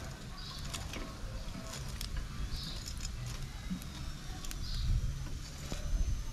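Metal tongs clicking against a wire grill rack as chicken pieces are turned over a charcoal coal pot. Underneath runs a low rumble, and a short high chirp comes about every two seconds.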